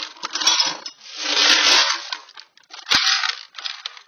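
Small loose metal hardware such as nails and hooks clinking and rattling as it is rummaged through by hand, in several loud bursts with a sharp knock about three seconds in.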